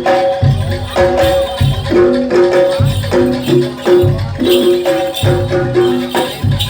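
Live jaranan gamelan music: pitched metal percussion plays a short repeating melodic figure over deep drum strokes and jingling percussion.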